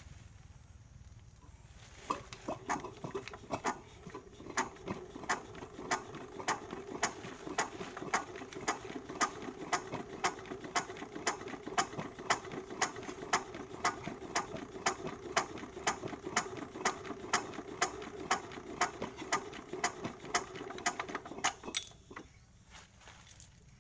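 A small machine running with a steady clack a little over twice a second over a steady hum; it starts abruptly about two seconds in and stops abruptly near the end.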